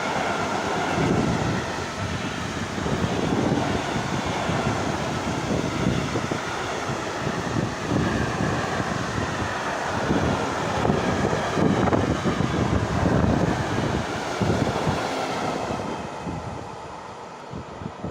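Freight train wagons rolling past at speed, their wheels rumbling and clattering on the rails in repeated low surges. The sound drops away over the last couple of seconds as the train passes.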